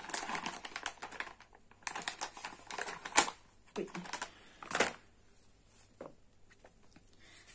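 Hands handling a small eyeshadow palette and its packaging: light clicks, taps and rustling, with one sharper click about three seconds in and another near five seconds.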